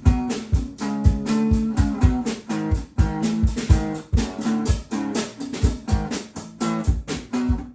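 A band jamming: guitar strumming chords over a steady drum beat with regular low thumps.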